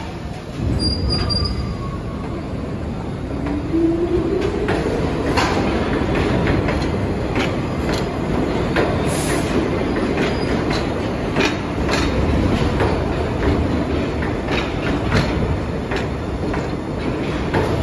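A New York City subway train of R62-series cars pulls out and picks up speed. The traction motors give a whine that rises in pitch a few seconds in. Then the wheels clatter over the rail joints in a clickety-clack that grows faster, with some wheel squeal.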